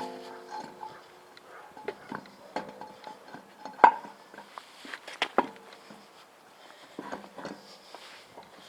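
Sparse plucked-string background music, with scattered light clinks and knocks over it, the loudest about four seconds in.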